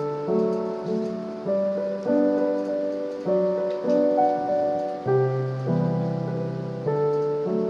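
Background music on piano: a slow run of soft notes and chords, a new one struck roughly every half second to a second, each fading as it rings.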